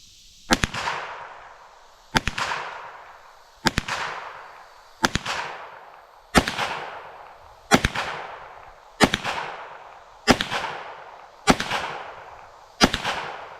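Ten shots from a GSG 1911 .22 LR pistol firing CCI Stinger rounds, evenly paced a little over a second apart, each sharp crack trailing off in a long echo. The pistol cycles every round of the magazine without a stoppage.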